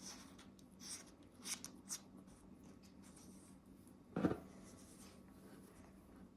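Handling noise from a thermal riflescope being turned over in the hands: soft rubbing and scuffing, with one sharper knock about four seconds in.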